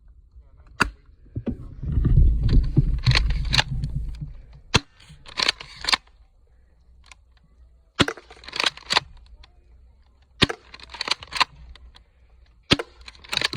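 Airsoft shotgun fired five times, a sharp crack every two to three seconds, with a short burst of clattering clicks after most shots.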